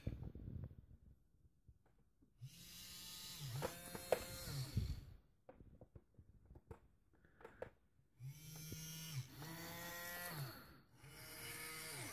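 Maplin robotic arm's small geared DC motors whirring in short runs as the arm moves. There is one run of about two seconds, then after a pause three runs in quick succession, each dipping in pitch as a motor starts and stops.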